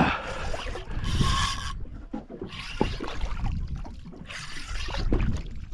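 Large spinning reel being cranked in repeated bursts of about a second or so, a whirring rasp with short pauses between, as a hooked fish is pumped and wound up toward a boat. A low rumble of wind and water runs underneath.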